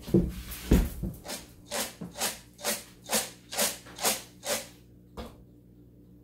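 A lidded pot holding popcorn kernels and Skittles in oil being shaken back and forth on a gas stove's burner grate: a heavy knock near the start, then eight or nine scraping, rattling strokes about two a second. The kernels are not yet popping.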